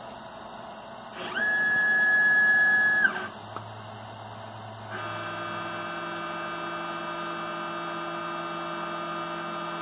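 Dyna DM2400 CNC mill's Z-axis drive motor whining as the head is jogged down toward the tool probe. A louder, higher whine about one second in rises quickly, holds for about two seconds and drops off. A quieter steady whine starts about five seconds in.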